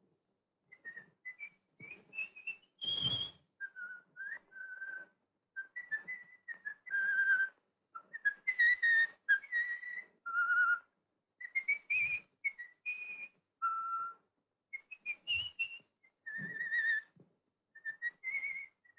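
A man whistling a tune through pursed lips: clear notes that slide up and down in short phrases, with brief breaths between them.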